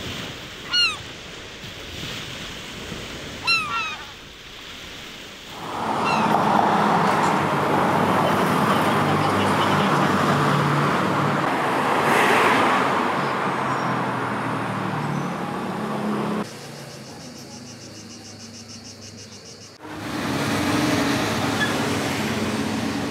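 Outdoor ambience across several cuts. A bird calls twice early on with short downward calls, then road traffic runs for about ten seconds, with a vehicle passing loudest about twelve seconds in. The traffic gives way to a quieter stretch with a rapid high buzz, and then a steady low hum.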